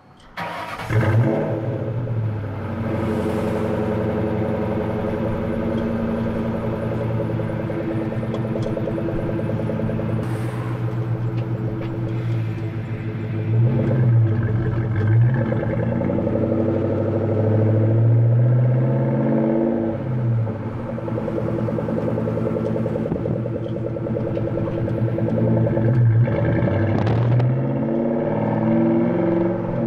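A 1997 Ford Mustang SVT Cobra's 4.6-litre DOHC V8, breathing through a BBK off-road X-pipe and Flowmaster 40 series mufflers, cold-starts and catches within about a second, then idles steadily. From about ten seconds in it drives off in stop-and-go city traffic, the revs rising and falling with the gear changes.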